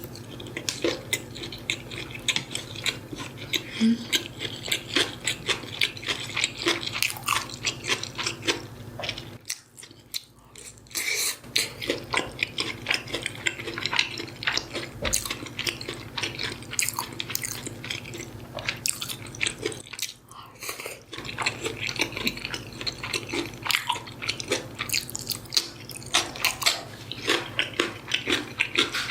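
Close-miked eating sounds: a person chewing and biting food, with dense irregular wet clicks and crackles. There are two short pauses, about ten and twenty seconds in, over a steady low hum.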